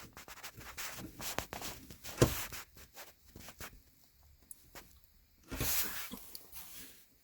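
Hands and tools working on a gear shifter's lever linkage: small scattered clicks, taps and rubbing, one sharper knock about two seconds in, and a longer scrape or rustle a little before the end.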